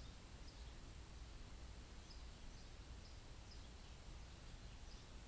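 Near silence: a faint low background rumble with scattered, faint high chirps of distant small birds.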